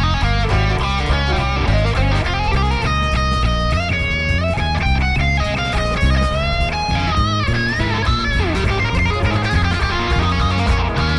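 Live funk band playing an instrumental passage: an electric guitar lead with bent and sliding notes over bass guitar and drum kit.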